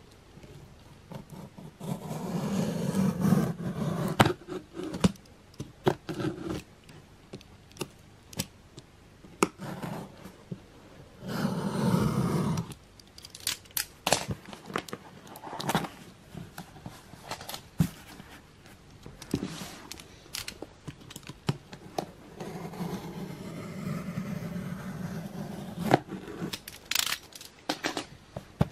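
Hands handling a cardboard shipping box: three stretches of scraping and rubbing against the cardboard, with scattered clicks and taps in between.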